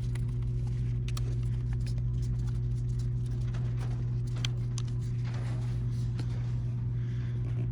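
Small clicks and taps of a 3mm Allen key and screws as the battery tray is being unbolted, scattered over a steady low electrical-sounding hum.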